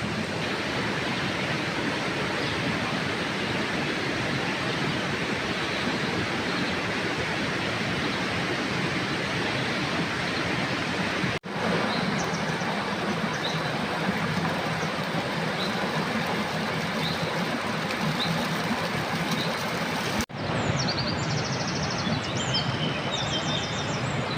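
Steady rushing water, broken twice by abrupt cuts. Faint high chirps come in after the first cut, and a clearer run of repeated high trilled chirps follows the second, near the end.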